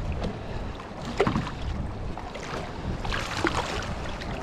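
Wind and water noise on a small fishing boat, with a few short knocks and clicks of handling about a second in and again around three seconds.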